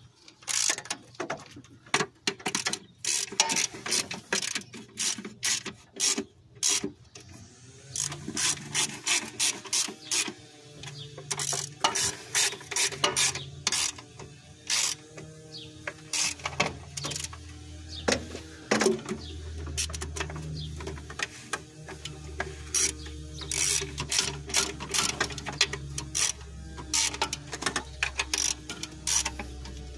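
Ratchet wrench clicking in rapid runs with short pauses between, as valve cover bolts are run down snug. A steady low hum comes in about eight seconds in and continues under the clicking.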